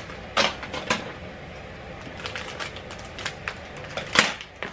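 Plastic wrapper of a Skittles Giants candy pack crinkling and crackling as it is handled and opened, a run of irregular crackles with louder ones about half a second in and near the end.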